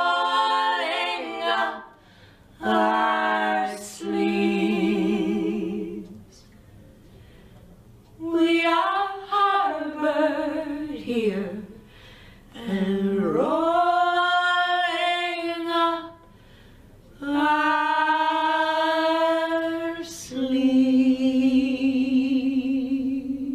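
Unaccompanied women's voices singing in harmony: a cappella music in long, held phrases with short breaks between them.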